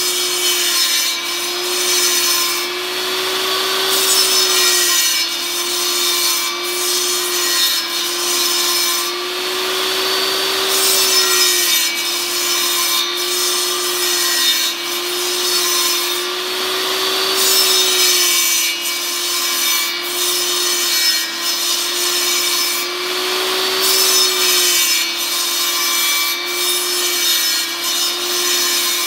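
Jobsite table saw running with its blade cutting a 2x4 block as the piece is worked round on a circle-cutting jig. The high cutting noise swells and eases every few seconds over a steady hum.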